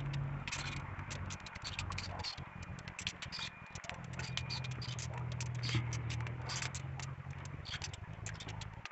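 Irregular light ticking and pattering of rain drops dripping on papaya leaves, over a steady low hum.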